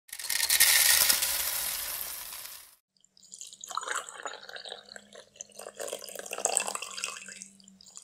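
Water pouring and trickling: a loud rushing hiss that fades out about three seconds in, then a stretch of irregular splashing and dripping over a faint steady hum.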